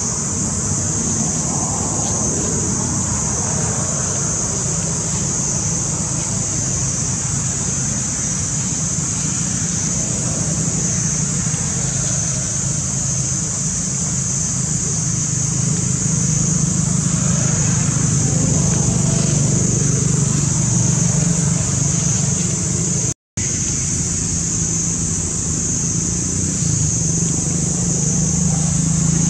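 Steady outdoor background noise: a constant high-pitched hiss over a low hum, with no animal calls standing out; it cuts out for an instant about two-thirds of the way through.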